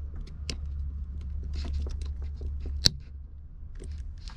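Plastic Anderson-style power connectors being handled and fitted together: scattered small plastic clicks and rattles, with one sharp, loud snap about three seconds in, over a steady low hum.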